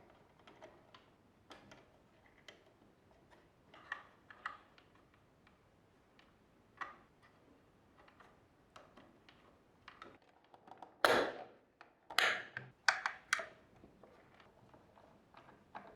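Small clicks and taps of coffee machine parts being handled and fitted together during reassembly, with a short cluster of louder clatters and clicks about eleven to thirteen seconds in.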